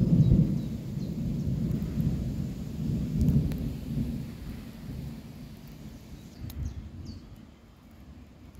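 Thunder rolling in low, uneven rumbles from an approaching thunderstorm, loudest at the start and again about three seconds in, then dying away.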